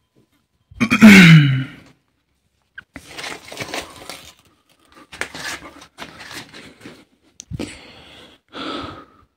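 Woven plastic sacks being shifted and handled, rustling and crinkling in short spells, with one sharp knock. About a second in, a short loud cry that falls in pitch stands out above the rest.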